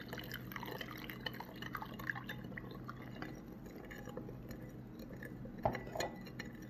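Hot water poured from a glass jug into a glass bowl of jelly crystals while a metal spoon stirs and scrapes against the glass, with two sharper clinks of the spoon on the bowl near the end.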